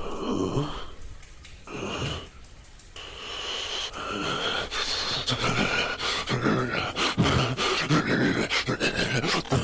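A man's heavy, wheezing breathing with groans and grunts, growing louder about four seconds in.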